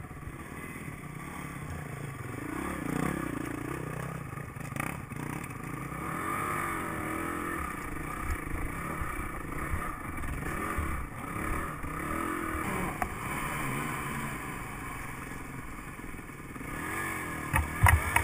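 Dirt bike engine running at modest revs, its pitch rising and falling as the throttle is worked over a rocky trail, with clatter from the bike over the rocks. Near the end there are a few sharp knocks as the bike pushes into brush.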